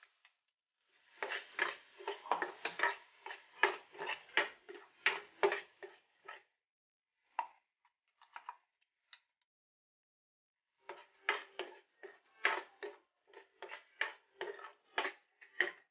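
Steel ladle scraping and clinking inside a steel mixer-grinder jar as thick coconut-and-onion paste is scooped out into the pan. The clinks come in two quick runs with a pause of a few seconds between them.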